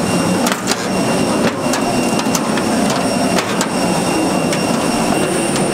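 Steady loud vehicle cabin noise, with faint high steady whine tones over it and scattered sharp clicks and knocks.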